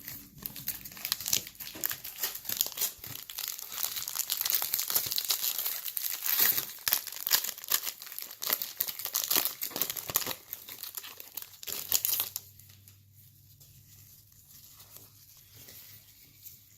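Foil wrapper of a trading-card pack crinkling and crackling as it is torn open and handled, for about twelve seconds before it stops.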